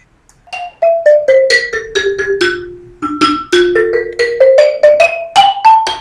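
Background music: a simple melody of single struck notes, about three or four a second, stepping down in pitch over the first half and climbing back up in the second.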